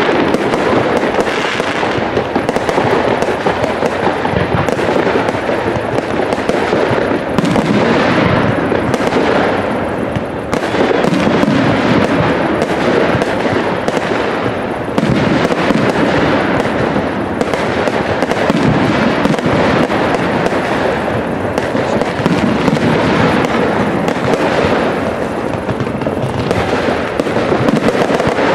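Aerial fireworks display: a dense, continuous barrage of shell bursts and crackling, many reports overlapping with hardly a gap, dipping briefly about a third of the way in.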